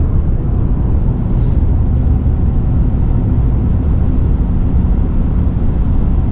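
Steady low rumble of tyre and wind noise inside the cab of a Ford F-150 Lightning electric pickup cruising at highway speed, around 110 km/h.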